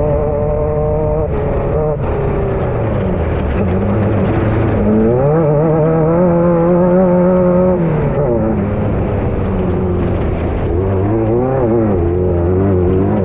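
Air-cooled Volkswagen engine of a Class 9 desert-race buggy, heard from inside the car while racing. Revs drop about two seconds in, climb and hold from about five seconds, drop again near eight seconds, and waver up and down near the end as the throttle comes on and off.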